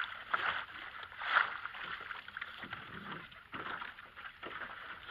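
Landing net swished back and forth in lake water to rinse it: irregular sloshing and splashing that comes in several uneven surges.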